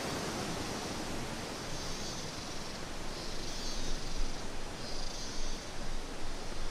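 Steady rushing noise of a fast-flowing river, with a faint high hiss that swells twice.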